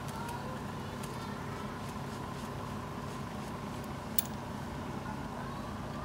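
Steady low hum of distant traffic, with a few light ticks and one sharper click about four seconds in.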